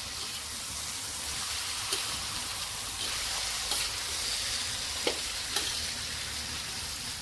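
Shredded cabbage and peas sizzling in hot oil in a metal kadhai while a steel spatula stirs them, with a few sharp knocks of the spatula against the pan.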